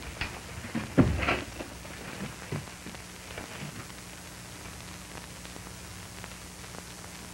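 Steady hiss and faint low hum of an old film soundtrack, with a few short sounds in the first second and a half.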